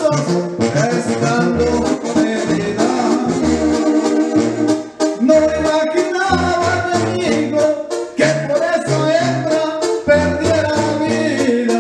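A man singing a Mexican regional song through a microphone over a karaoke backing track, with a stepping bass line and steady shaker-like percussion.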